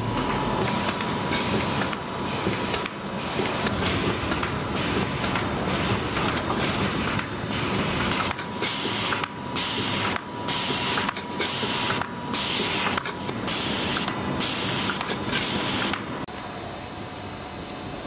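Paper printing and laminating line running at speed, a steady mechanical clatter and hum. In the second half its compressed air hisses sharply in a regular beat, a little more than once a second. Near the end it gives way to a quieter machine hum with a thin steady whine.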